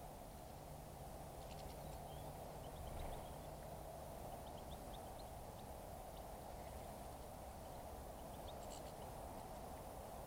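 Small wild birds giving short, high chirps, scattered and faint, over a steady background hiss.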